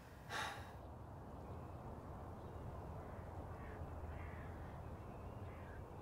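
A crow cawing: one harsh, brief call about half a second in, then fainter calls further off over a low steady rumble.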